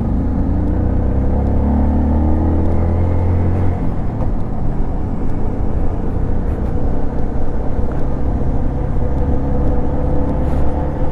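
Motorcycle engine running while riding over rough, uneven cast-concrete road, with a steady low rumble of road and wind noise. The engine pitch rises over the first few seconds, then holds fairly steady.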